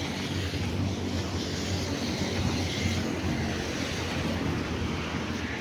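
Steady rumble of road traffic on a multi-lane highway, without any single vehicle standing out.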